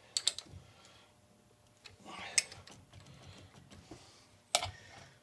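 Light metallic clicks and clanks of steel parts being handled while the nut is tightened on the stud of the tool post grinder's T-nut mount: a couple of clicks at the start, a brief scrape with a sharp click about two seconds in, and a sharp knock near the end.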